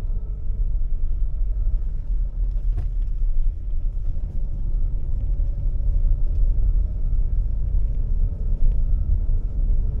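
A car driving on a wet road, heard from inside the cabin: a steady low rumble of engine and tyres. There is one brief tick about three seconds in.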